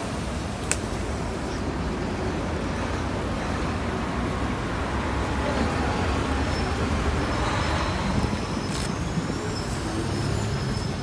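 City street traffic: a steady rumble and hiss of passing vehicles, with a sharp click about a second in and another near the end.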